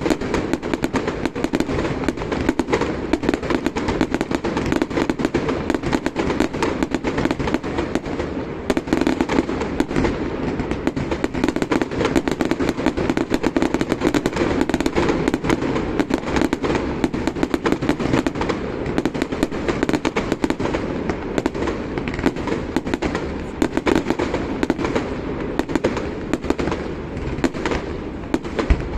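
Fireworks display with dense, continuous rapid crackling.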